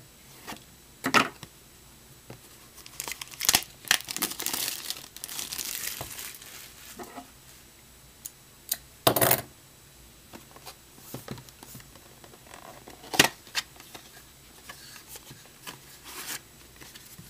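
Cardboard blaster box of trading cards being handled and torn open: a few seconds of tearing and rasping cardboard, with several sharp knocks and clicks as the box is picked up, turned and its flaps worked.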